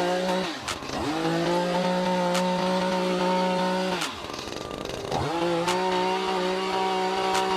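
Chainsaw engine held at high revs, dropping to a low idle twice and revving back up each time.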